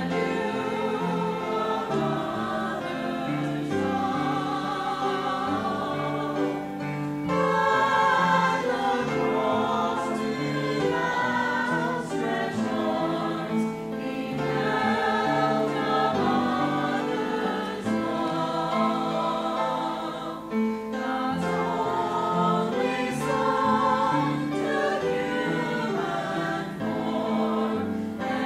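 Choir singing in many voices, with held notes and vibrato.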